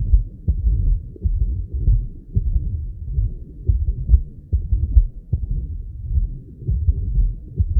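Heart sounds of a patient in atrial fibrillation with a double mitral lesion (mitral stenosis together with mitral regurgitation): low-pitched beats at an irregular rhythm, with a murmur between them.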